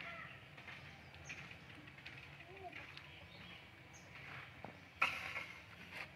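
Quiet outdoor background with faint bird and animal calls, and one short, louder pitched call about five seconds in.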